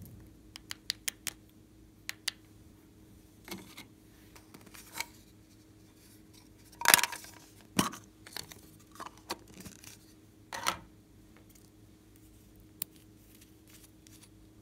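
Clicks and snaps of hard plastic makeup cases being handled and pried open: a compact and a lipstick tube. Several quick small clicks come first, and a louder, longer snap about halfway through is the loudest sound.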